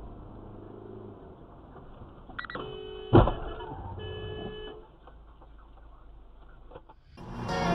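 A car horn sounds for nearly a second, a single sharp knock comes, then the horn sounds again for about a second, over low road noise inside a moving car. Music starts near the end.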